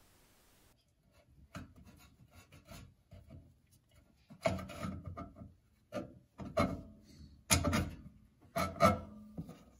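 Replacement combustion blower motor being worked onto its three mounting studs on a Harman pellet stove. Its housing scrapes and knocks irregularly against the studs and stove, with several louder scrapes in the second half.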